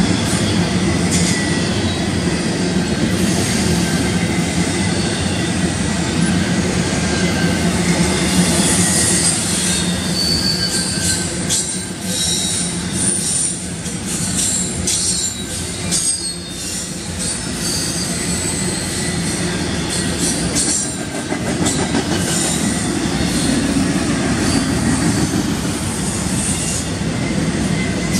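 Intermodal freight cars, double-stack container well cars and then trailers on flatcars, rolling steadily past. Steel wheels rumble on the rail with short high wheel squeals and a run of clicks over the rail joints in the middle.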